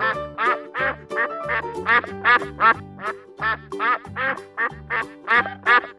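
Duck quacking over and over in a quick series, about two to three quacks a second, over background music.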